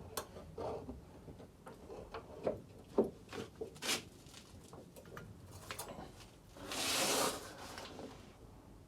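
Hand tools working on a tight fitting under a car: scattered light metallic clicks, taps and scrapes, with a longer rasping rub about seven seconds in.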